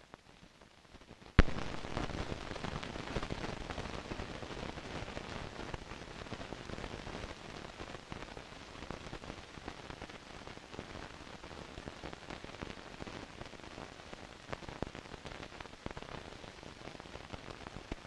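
Run-out crackle of a 16mm film soundtrack. A single sharp pop comes about a second and a half in, then steady dense crackling and hiss from dust and wear on the film's end leader and tail titles.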